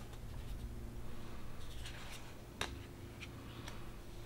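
Matte-finish oracle cards being handled on a table: a soft rustle of card sliding over card, then a single light tap as a card is set down about two and a half seconds in.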